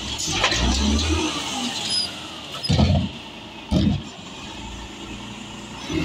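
A 1999 Peterbilt 320 side-loader garbage truck's diesel engine running under load while the automated arm lowers an emptied cart back to the curb. Two loud clunks come about three and four seconds in.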